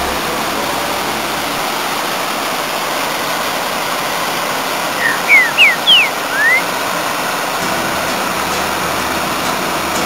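Steady rush of a waterfall cascading over rocks into a pool. About five seconds in, a bird gives five quick whistled notes, the first four falling in pitch and the last one rising.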